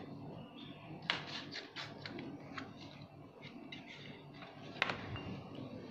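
Scissors cutting medicine blister strips, with the crinkle and rustle of foil and plastic packaging being handled between cuts; two sharper snaps, about a second in and near the end.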